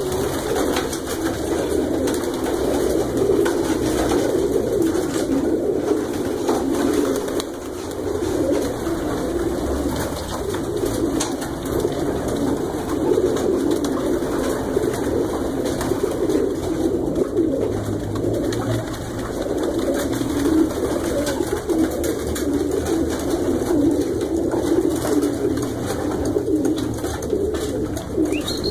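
A crowd of racing pigeons cooing together, a dense overlapping chorus that never lets up.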